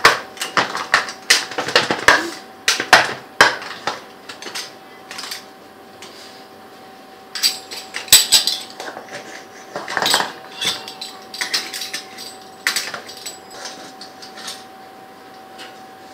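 Round metal baking pan clattering and knocking against the countertop as a baked pizza is worked loose and tipped out of it: irregular knocks and scrapes, densest in the first few seconds, with a faint steady hum underneath.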